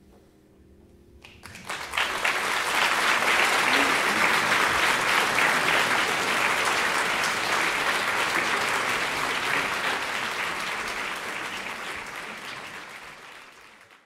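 Audience applauding a live concert: the clapping breaks out about a second in as a last faint held chord dies away, swells quickly, holds steady, then slowly fades toward the end.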